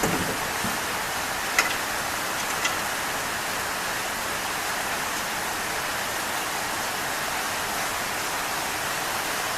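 Rain falling steadily, an even hiss, with two faint clicks in the first few seconds.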